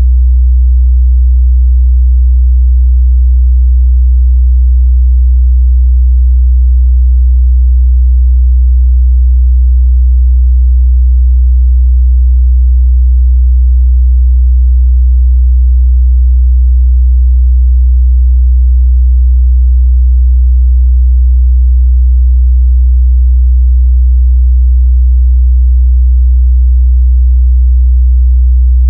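A 62 Hz sine-wave test tone, a single steady deep bass hum held at constant loudness, used to check a speaker's or headphone's mid-bass response.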